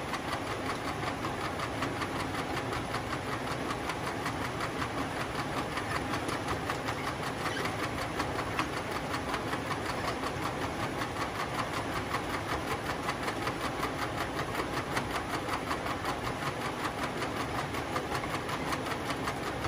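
Alliance accumulation conveyor table running empty, its wide modular plastic belt travelling over the bed with a steady, fast, even clatter.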